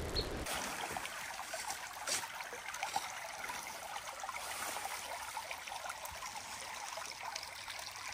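Small creek trickling steadily.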